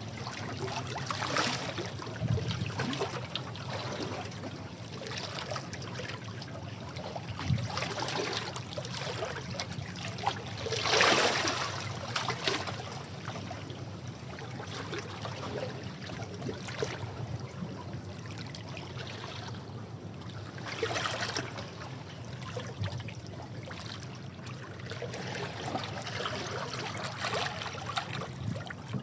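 Sea waves washing against rocks: a continuous rushing wash broken by irregular splashing surges, the biggest about eleven seconds in and another about twenty-one seconds in.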